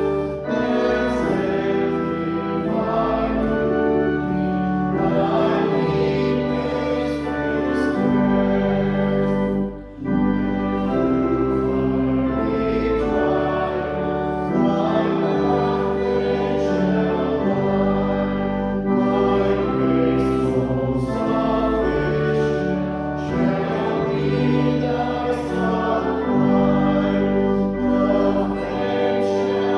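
Church congregation singing a hymn to organ accompaniment, in slow held chords, with a short break between lines about ten seconds in.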